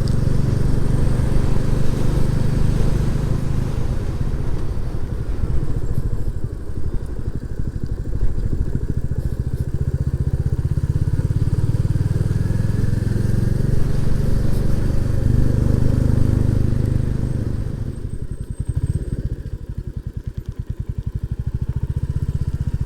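Royal Enfield Classic 350's single-cylinder engine running under way as the bike is ridden. About 18 seconds in it drops in level to a lighter, more distinct beat as the throttle is eased off.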